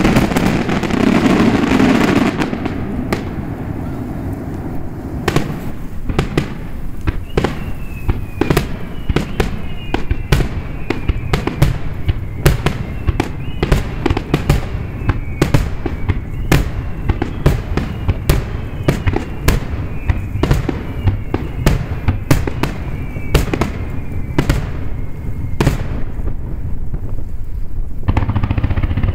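Fireworks display: a rapid run of shell bursts, sharp bangs several a second, after a dense crackling burst in the first two seconds. Whistling tones that fall slightly in pitch recur through the middle.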